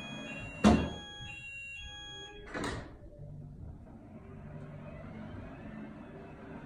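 Fire alarm sounder giving a stepped electronic warning tone that stops a little over two seconds in. Two sharp knocks come under it, the first and loudest about a second in. Near the end comes a faint whirr as the fire curtain's motor starts rolling the lowered curtain back up.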